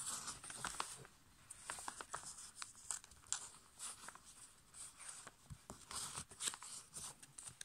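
A sheet of A5 copy paper being folded and its crease pressed flat with the fingers against a tabletop: a faint, irregular run of paper crinkles and scrapes.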